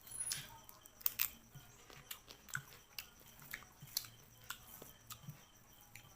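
Close-up eating sounds: chewing and biting, with many short wet clicks and smacks coming roughly twice a second, the loudest near the start and about a second in.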